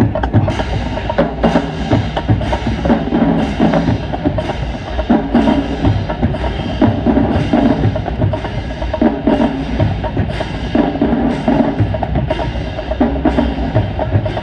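Marching band drumline playing a cadence, sharp stick and drum strokes at a steady beat of a little under two a second.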